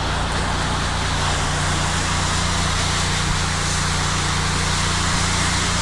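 Pressure washer's engine running steadily, with the even hiss of the spray as bleach solution goes on through a downstream chemical injector.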